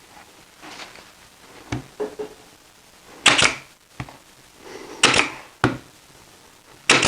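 Pneumatic brad nailer firing three times, about two seconds apart, each shot a sharp crack with a short puff of air, fastening the Masonite back panel; lighter knocks of the work being handled come in between.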